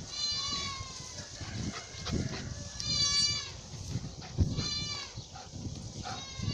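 An animal crying out in high-pitched, drawn-out calls, four times, each about half a second long.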